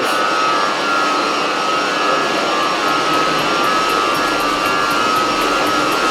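Irrigation pump station machinery running steadily: a loud, even mechanical noise with a steady whine over it.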